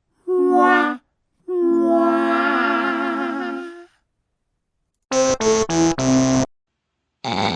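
A string of comic 'fail' sound effects: a sad-trombone 'wah-wah' phrase of falling notes ending in a long wavering note, then a quick four-note electronic jingle, then a short buzz near the end.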